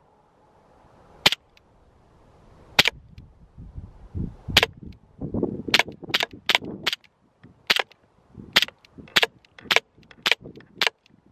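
CO2-powered Colt 1911 airsoft pistol firing about a dozen sharp shots of 0.36 g BBs. The first few come a second and a half or more apart, then a quicker string follows at about two shots a second.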